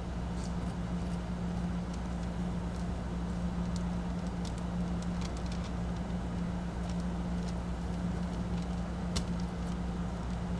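Engine idling with a steady low hum, with a few faint, sharp clicks over it.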